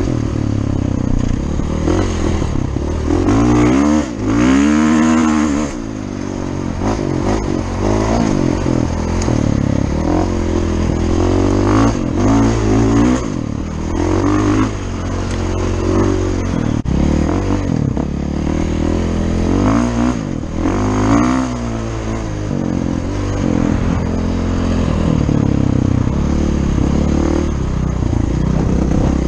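Dirt bike engine under way, its pitch rising and falling again and again as the throttle opens and closes on the trail.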